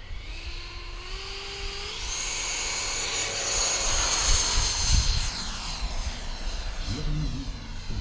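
Electric ducted-fan model jet (Aviation Design Scorpion, 6S-powered) spooling up to a loud high-pitched whine on its take-off run, the pitch falling as it rushes past. Wind rumbles on the microphone.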